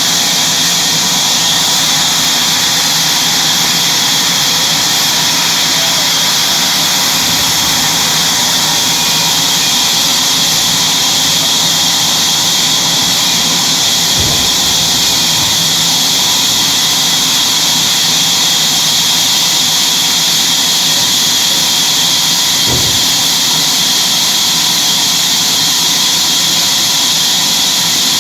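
Sawmill machinery running steadily with a loud high hiss. Two brief low thumps come through it, about halfway through and again some eight seconds later.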